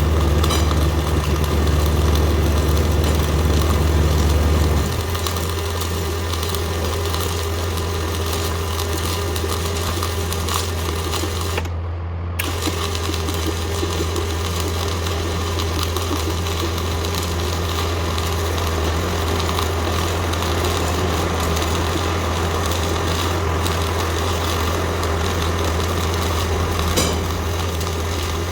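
CO2 MIG welding arc buzzing steadily over a low machine hum, with a short break about twelve seconds in.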